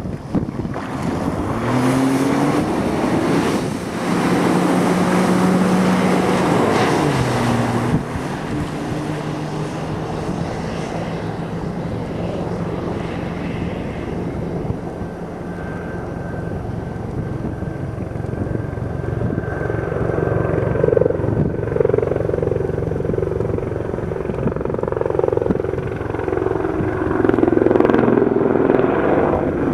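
Sea-Doo personal watercraft engine revving up as it pulls away, its pitch rising over the first couple of seconds, then running at speed with a steady whine over the hiss of spray. The pitch dips briefly about eight seconds in, and the sound swells louder again near the end.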